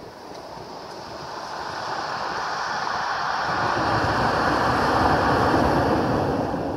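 A wave breaking on a pebble beach: the surf swells over a few seconds to its loudest about five seconds in as the wave crashes onto the shingle, then eases off.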